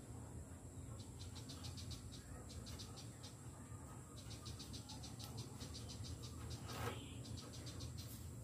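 Faint rapid high-pitched chirping in short repeated runs, about eight pulses a second, from a small animal, with one brief louder call about seven seconds in.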